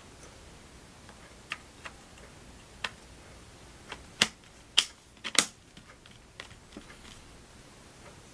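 Scattered sharp clicks and taps of small laptop parts being handled by hand, with the loudest three coming close together about four to five and a half seconds in.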